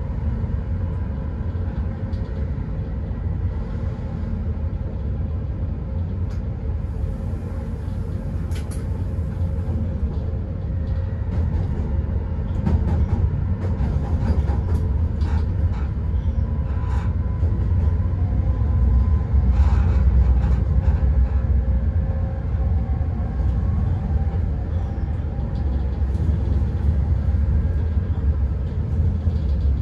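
Newag Dragon electric locomotive running along the line: a steady low rumble with a faint steady hum, scattered clicks and knocks from the wheels on the track, growing a little louder about halfway through.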